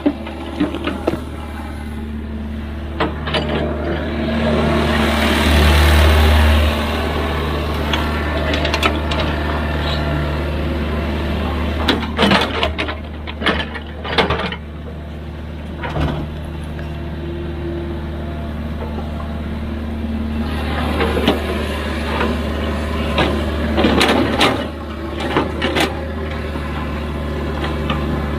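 Excavator's diesel engine running steadily, working harder and louder for a moment about five seconds in, with scattered metallic clanks and knocks from the machine working, several in quick succession around the middle and again near the end.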